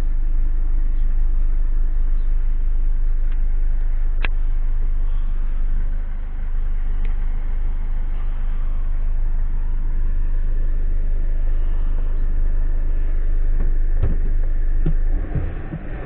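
Mercedes-Benz Sprinter 514 CDI diesel engine running steadily with the van standing, a constant low hum heard from inside the cab. A single sharp click comes about four seconds in, and a few knocks come near the end as the sound drops a little.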